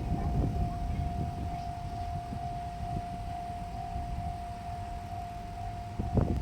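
Railway level-crossing warning alarm sounding a single steady high tone, over the low rumble of a diesel train. A sharp knock comes near the end.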